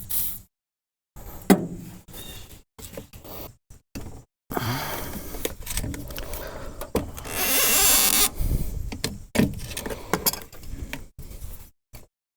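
A wrench working a corroded truck battery terminal nut: metal clinks, scraping and rattling, broken by several abrupt cuts to silence. Near the middle comes a louder rushing hiss that lasts about a second and a half.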